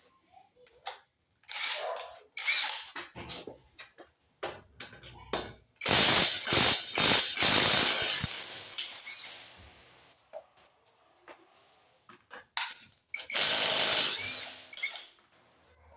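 Ratchet wrench clicking in several bursts of turning, the loudest and longest lasting about three seconds in the middle.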